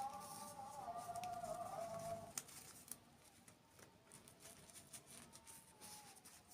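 Close-up eating sounds: scattered sharp clicks and mouth smacks from chewing. A faint wavering tone runs under them and stops about two seconds in.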